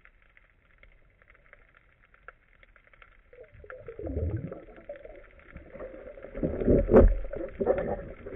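Underwater sound on a diver's camera: a faint steady crackling, then, from about three and a half seconds in, irregular louder rumbles and knocks of water and handling noise against the camera housing as the spearfisher moves the speargun. The loudest knock comes about seven seconds in.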